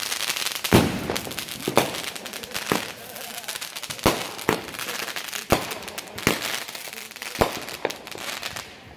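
Aerial fireworks going off: a series of sharp bangs about one a second, with crackling and hissing between them.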